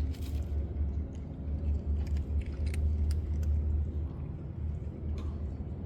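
Steady low rumble, like wind on the microphone or distant traffic, with scattered small clicks and rustles over it.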